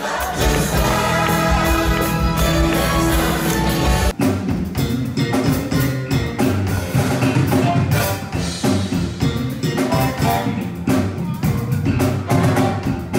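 A stage musical's cast singing over backing music, cut off abruptly about four seconds in. Then a live rock band plays: electric guitar, keyboard, drum kit and bass guitar, with the drums prominent.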